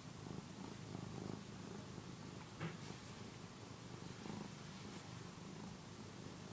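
Tabby cat purring steadily while it suckles on a soft fleece housecoat, with one short click a little before halfway.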